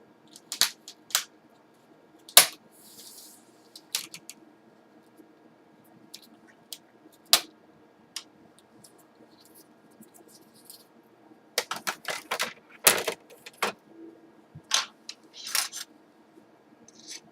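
Plastic screen bezel of an MSI GE72 laptop being pried off around its edge: scattered sharp clicks and snaps as its clips let go, with a quick run of them a little past the middle.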